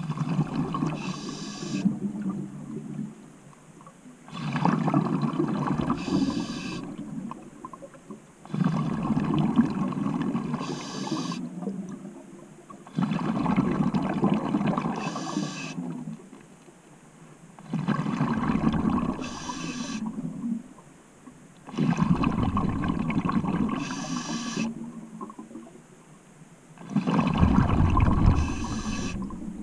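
A scuba diver breathing through a regulator underwater: exhaled bubbles gurgle out in regular bursts about every four to five seconds, each with a short hiss near its end, with quieter pauses between breaths.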